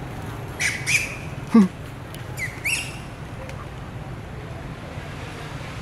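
Juvenile long-tailed macaque giving short shrill screeches in two quick pairs, the distress calls of a young monkey being grabbed and hit by a dominant male. Between the pairs comes one louder call that falls sharply in pitch, over a steady low rumble.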